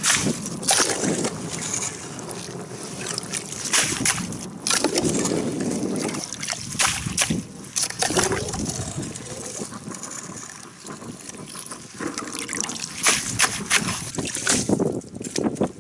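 Metal ice skimmer scooping slush and ice chips out of an ice-fishing hole: water sloshing and dribbling through the scoop, with irregular scrapes and clicks of metal against ice.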